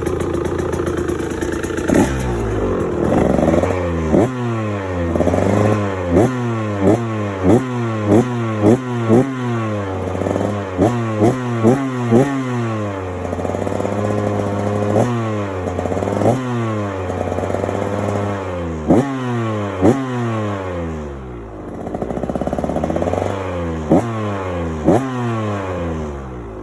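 2023 KTM 125 XC two-stroke engine, fitted with an FMF Turbine Core 2.1 silencer, idling and then revved over and over in quick throttle blips, each a sharp rise and fall in pitch. It drops back to idle briefly about three-quarters of the way through.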